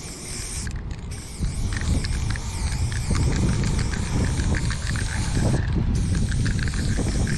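Aerosol spray-paint can hissing in long strokes, stopping briefly about a second in and again near six seconds, over a steady low rumble of outdoor wind and traffic.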